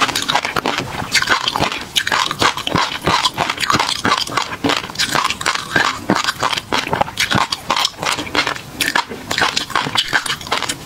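Close-miked mouth sounds of eating: wet chewing and lip smacking, a dense run of small clicks and pops throughout.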